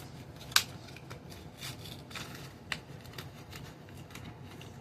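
Hands handling a plastic RC toy and its batteries: a series of short plastic clicks and light rattling, the sharpest click about half a second in and another near three seconds.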